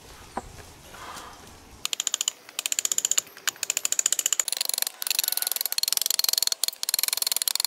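Hand saw cutting a notch into a wooden pole: quick back-and-forth strokes start about two seconds in, each one a fast clicking rasp of the teeth through the wood, with short pauses between groups of strokes.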